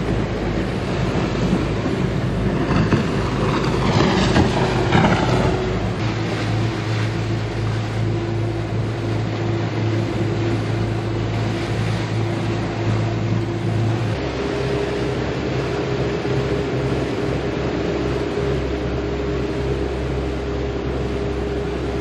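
Motor yacht under way at cruising speed: a steady engine drone with the rush of water and wind along the hull. The hum changes about two-thirds of the way through.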